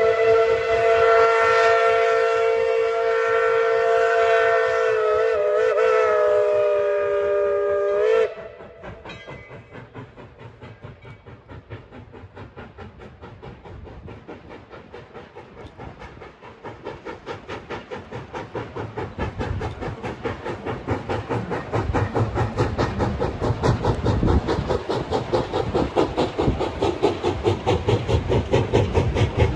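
A steam locomotive's whistle blows one long blast of several notes at once, cutting off suddenly about eight seconds in. The locomotive's rhythmic exhaust chuffing follows and grows steadily louder, with hissing steam.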